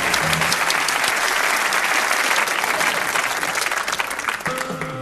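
Audience applauding, a dense steady clatter of clapping. Music with a bass line ends just after the start, and a new tune comes in near the end.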